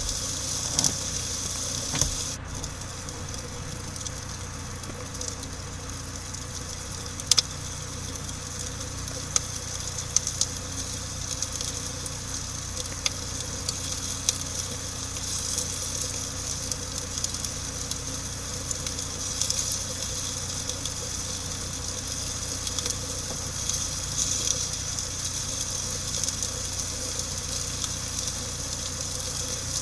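Campfire burning: a steady hiss with scattered sharp pops and crackles from the burning wood, a few louder pops standing out.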